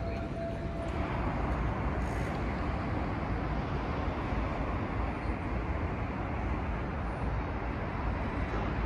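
City street ambience at night: a steady rumble of road traffic with a low hum, rising slightly about a second in. A faint steady tone stops about a second in.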